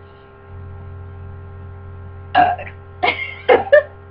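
A young woman forcing out burps: one loud, short burp about two seconds in, then a few more quick ones close together, over a steady electrical hum.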